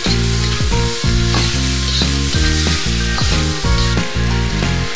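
Chopped chicken sizzling as it sautés in a hot wok over high flame, rendering its fat, with a metal ladle stirring the pieces. Background music with a changing melody plays over it.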